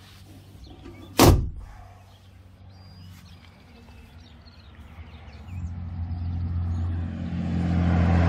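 A single sharp bang about a second in, the aluminium console door of the boat being shut. From about halfway through, a motor vehicle's engine hums steadily and grows louder.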